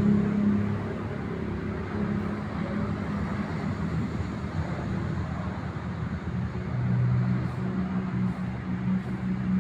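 Road traffic: vehicle engines running close by with a steady low hum as vehicles cross.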